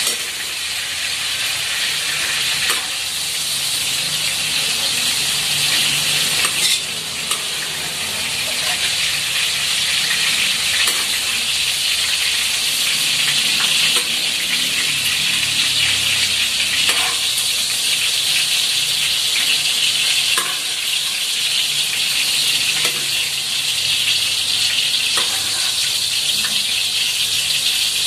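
Fried potato cubes sizzling steadily in hot cooking oil, with a few light clicks of the spatula as the pieces are scooped out to drain.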